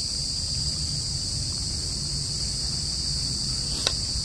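Steady, high-pitched chorus of crickets, with a low rumble underneath and a single sharp click near the end.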